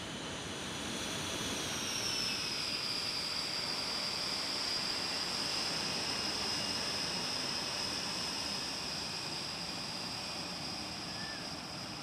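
Panavia Tornado's RB199 turbofan engines running at low power as the jet taxis: a high steady whine that drops slightly in pitch over the first two seconds, over a rushing noise.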